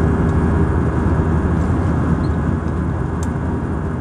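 Steady cabin roar of an Airbus A320-214 in flight, heard from a window seat over the wing: its CFM56-5B turbofan engines and the airflow make a constant noise with a low hum in it. The roar grows a little fainter in the last second or so.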